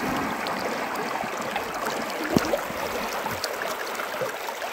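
Water sloshing and splashing as people wade waist-deep through a flooded river.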